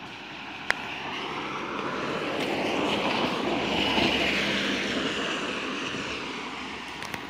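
A car passing close on a wet road: tyre hiss and spray swell to a peak about four seconds in, then fade as it drives away.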